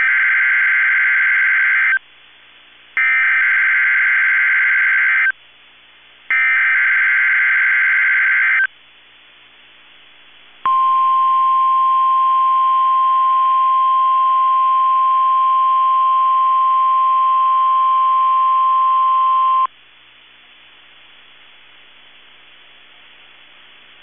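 NOAA Weather Radio emergency alert tones during a required weekly test. First come three identical SAME digital header bursts, each a harsh warbling data squeal about two seconds long with a second's gap between them. Then the steady 1050 Hz warning alarm tone sounds for about nine seconds, and after it comes a few seconds of faint hiss.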